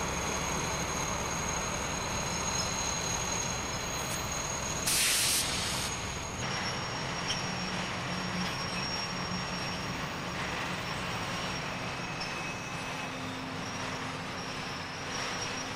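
Diesel locomotives running steadily at slow speed, with a short, sharp hiss of air about five seconds in.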